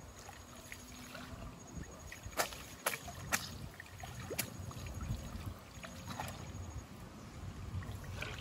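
Water sloshing low and steady as a man wades through shallow swamp water. There are four sharp knocks of bamboo between about two and four and a half seconds in, as bamboo eel-trap tubes and a stake are handled.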